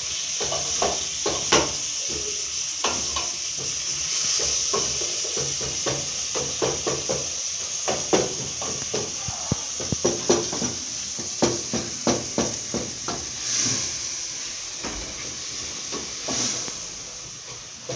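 Onions, ginger and tomatoes sizzling in a metal pot while a wooden spoon stirs them, knocking against the pot in many short irregular clacks over a steady frying hiss.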